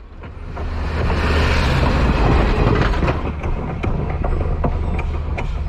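A passenger train rolling past on the rails: a steady low rumble with scattered clicks and clacks of the wheels. It swells over the first second.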